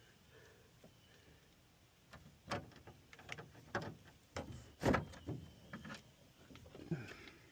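A string of irregular knocks and clicks, the loudest about halfway through, as an aftermarket rear spoiler is handled and set against a car's trunk lid.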